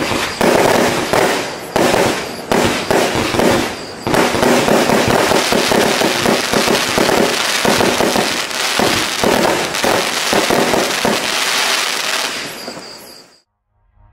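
Manga Fireworks 'Double Trouble' consumer fireworks cake firing: single shots and bursts come every half second or so, then a dense rapid barrage of launches, bangs and crackling stars about four seconds in. The barrage fades out and stops shortly before the end.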